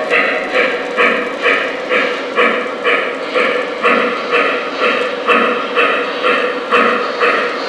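O gauge Shay model steam locomotive's sound system chuffing steadily as it runs, a little over two even chuffs a second.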